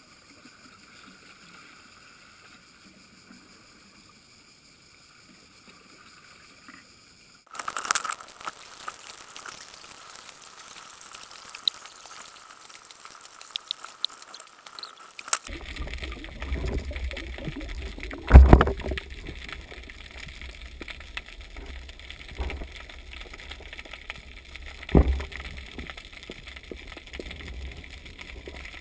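Faint steady hum at first, then an abrupt change about a quarter of the way in to muffled underwater water noise heard through a GoPro HD Hero2's waterproof housing while swimming. Low rumble with scattered knocks, and two loud thumps a few seconds apart in the second half.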